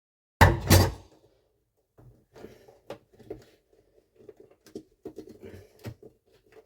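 Two loud knocks close together, then irregular faint clicks and light knocks of metal hand tools and small hardware being handled.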